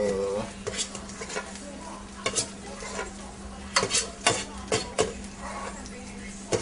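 Food sizzling in a frying pan while a utensil stirs it, clacking sharply against the pan a series of times, over a steady low hum.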